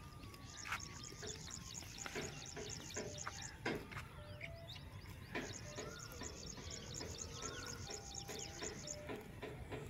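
Outdoor rural ambience of birds chirping and whistling short notes, with a dense, fast, high-pitched chirring in two long stretches and a few sharp clicks over a low steady rumble.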